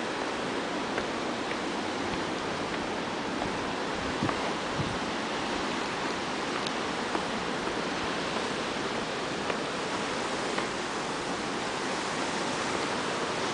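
Steady, even roar of sea surf breaking on the rocky shore below, with a few faint clicks.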